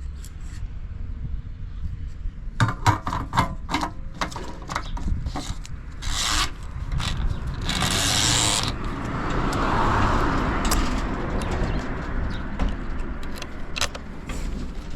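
Yamaha Serow 225's air-cooled single-cylinder four-stroke engine idling low and steady through a Supertrap up-muffler, with no abnormal noise. Over it come a run of clicks and knocks a few seconds in, then two short bursts of rushing hiss.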